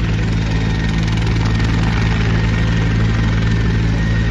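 Helicopter's engine and rotor running with a steady, unchanging low hum.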